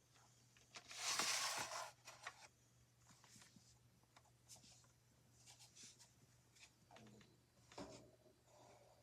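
Faint handling sounds: a brief rustling scrape about a second in, then scattered soft clicks and taps with a sharper click near the end, over a low steady hum.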